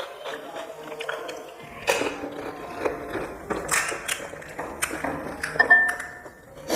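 Someone eating crisp snacks: irregular crunchy bites and chewing, with sharp clicks and taps.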